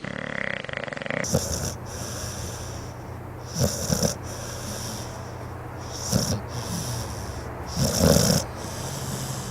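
A sleeping dog snoring, a loud snore about every two seconds over a steady low hum.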